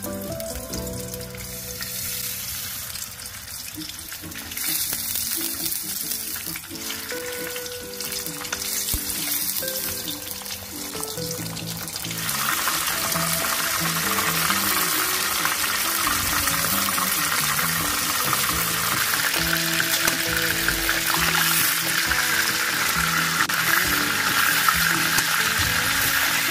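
Pork chops frying in hot oil in a nonstick frying pan, a steady sizzle that turns louder and brighter about halfway through as a second chop goes into the oil.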